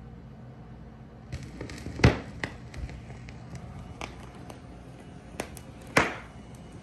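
Turntable stylus set down and tracking the silent lead-in groove of a vinyl LP, heard through a Luxman L-450 amplifier and JBL L96 speakers: a faint low hum, then from about a second in scattered clicks and pops of surface noise, the two loudest about two seconds in and near the end.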